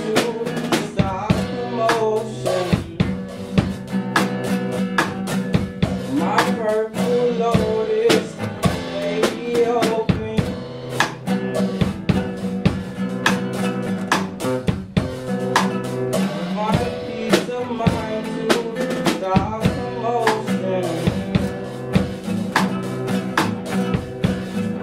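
Nylon-string classical guitar playing chords together with a drum kit played with sticks, with frequent sharp drum and cymbal hits over the sustained guitar.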